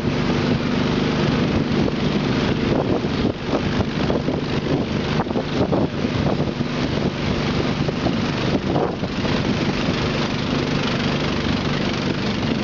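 Long-tail boat engine running steadily.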